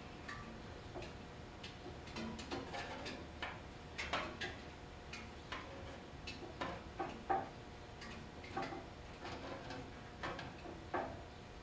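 A saw set clicking as it bends the teeth of a Disston D8 rip saw one at a time, setting alternate teeth to either side. The clicks come irregularly, about one or two a second.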